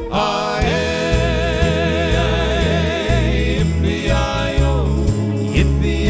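Male western vocal group singing in close harmony, a long held chord with vibrato for the first few seconds, then another shorter phrase, over guitar and changing bass notes.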